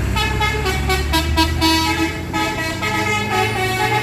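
A bus's telolet horn, a set of multi-tone air horns playing a quick tune of changing notes, over the bus engine running.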